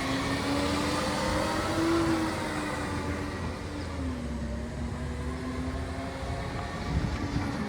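Green waste collection truck's engine running, its pitch rising over the first two seconds, dropping about four seconds in, then holding steady over a low rumble.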